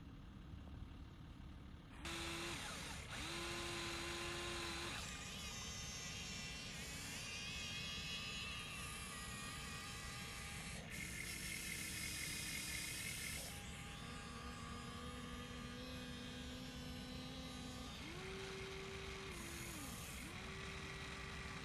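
Small electric motors of a Huina RC excavator whining as it digs, over a steady higher whine. Lower motor tones switch on and off several times and change pitch as different movements are driven. The first two seconds hold only a faint hiss.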